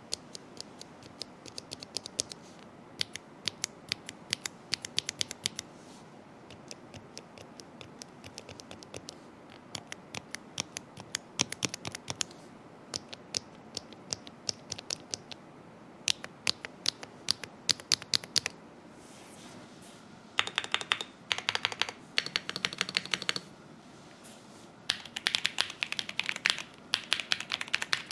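Typing on a mechanical keyboard fitted with Gateron linear switches (CM, then Unicorn, then Lunar Probe, then CM again): keystrokes clacking as the keys bottom out and spring back, sometimes one by one and sometimes in fast runs. The typing runs densest near the end.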